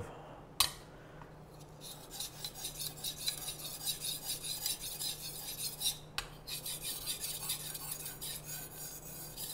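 Steel knife blade stroked back and forth on a wet 3000-grit whetstone: a rhythmic, gritty scraping that starts about two seconds in, with a short break and a light click around six seconds.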